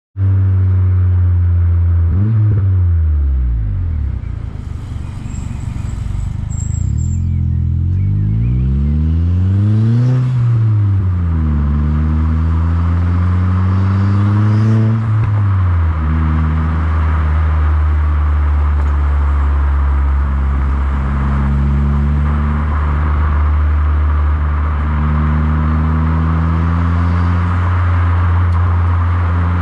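Mitsubishi Colt CZT's 1.5-litre turbocharged four-cylinder engine heard at the exhaust, idling and revved three times. There is a quick blip about two seconds in, a longer rev that climbs and falls back around ten seconds, and another short blip soon after. It then settles to a steady idle.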